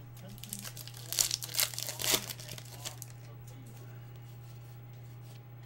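A trading-card pack wrapper torn open and crinkled as the cards are pulled out: a flurry of crackling rustles lasting about three seconds, then it goes quiet apart from a low steady hum.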